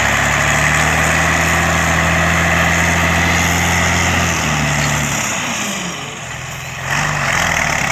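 Randon RK 430B off-road dump truck's diesel engine running steadily while the truck tips its load of earth. About four to five seconds in it drops in pitch and eases off, then picks up again near the end.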